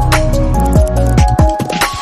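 Background music: deep bass notes that slide downward, sharp drum hits and a held melody; the bass drops out about three-quarters of the way through.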